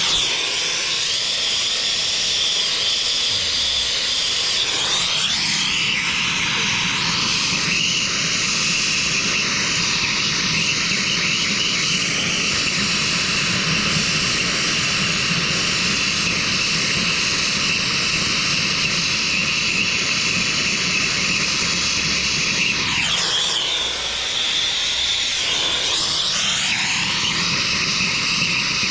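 Loud, steady whooshing drone of a motor-driven machine. Its pitch dips and comes back up about five seconds in, and again dips and recovers over a few seconds near the end.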